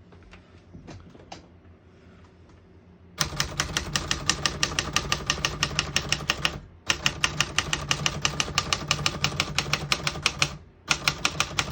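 1967 Smith-Corona Corsair manual portable typewriter being typed on: a few faint clicks at first, then fast, even runs of key strikes from about three seconds in, breaking off briefly twice.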